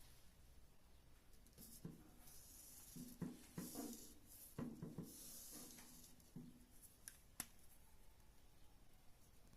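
Faint hand-work sounds: short scrapes and light knocks in the middle, then two sharp clicks.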